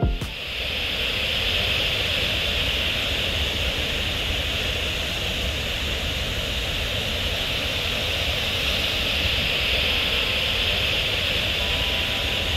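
Large waterfall: a steady rush of falling water with a low rumble underneath.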